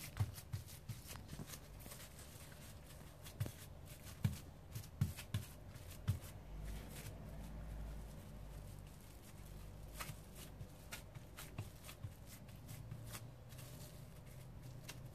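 Hands patting and pressing raw minced meat flat on plastic cling film: quiet, irregular soft taps and pats, with rustling of the film.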